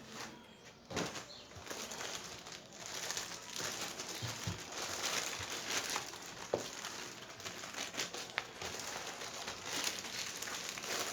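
Packaging material being handled and pulled off a new laptop: a continuous crinkling and rustling, with many small crackles.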